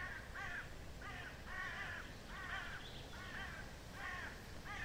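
Crows cawing over and over in the background: short harsh calls, about two a second.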